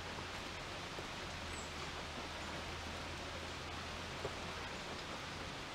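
Room tone: a steady hiss with a low hum underneath, and a single faint click a little over four seconds in.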